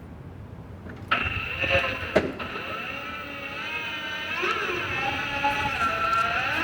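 Semi-automatic tyre changer's turntable starting to rotate about a second in, with a wavering squeal as the tyre bead is worked over the rim past the mounting tool. There is one sharp knock shortly after.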